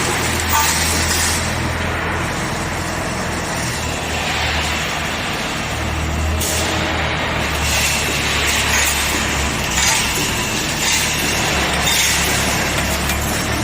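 Automatic wire mesh panel welding machine running: a steady low electrical hum with irregular bursts of hissing noise over it.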